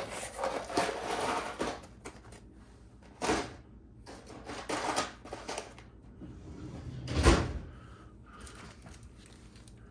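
Small hobby parts and their packaging being handled and put away on a workbench: scattered rustling and clattering, with one heavy thump about seven seconds in.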